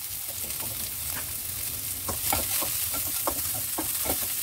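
Chopped ginger, garlic and red chili sizzling in hot oil in a nonstick wok, a steady hiss. From about two seconds in, a spatula stirs them with a run of short scraping strokes against the pan.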